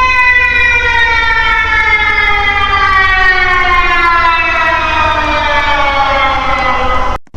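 Civil-defense-style alarm siren: one pitched tone that falls slowly and evenly in pitch over about seven seconds, then cuts out for an instant near the end.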